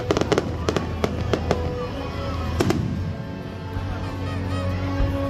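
Aerial fireworks bursting: a rapid run of bangs and crackles in the first second and a half, then another bang near the middle, over music playing.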